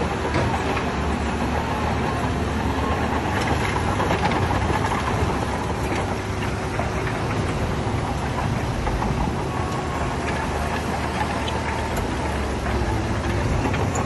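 Heavy diesel earthmoving machinery running steadily, with a deep engine rumble and a few short metallic knocks.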